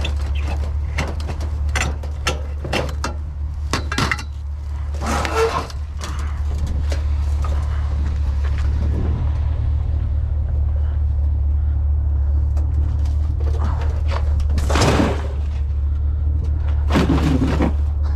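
Vehicle engine running with a steady low hum. A quick run of knocks and clatter comes over the first few seconds, then a few louder rushes of noise later, like doors or load being handled.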